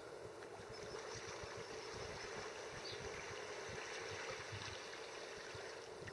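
Lake water lapping and gurgling close to the microphone at the waterline, over a steady background hiss, with a faint short high chirp about three seconds in.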